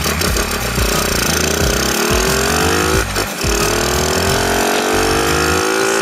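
Freshly overhauled Honda Chaly CF70's small single-cylinder four-stroke engine pulling under way, its revs climbing, easing off briefly about three seconds in, then climbing again. Strong wind buffets the microphone underneath.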